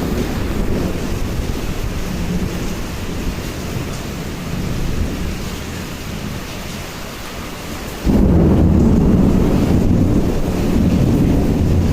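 Typhoon storm: rain and strong wind in a continuous loud roar, with a deep rumble of wind on the microphone that grows suddenly louder about eight seconds in.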